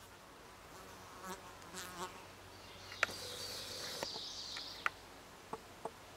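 Flying insects buzzing close to the microphone: a few short wavering buzzes as they fly past about a second in, then a thinner, higher buzzing for about two seconds in the middle. A few sharp clicks are scattered through the second half.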